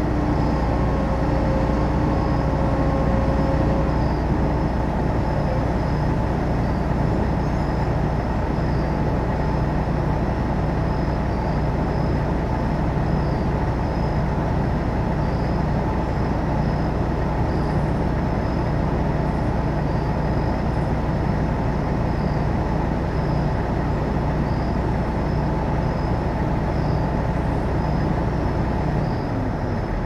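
John Deere 9500 combine's diesel engine and machinery running steadily as a deep, even drone, with a thin high tone pulsing faintly above it. The drone eases slightly just before the end.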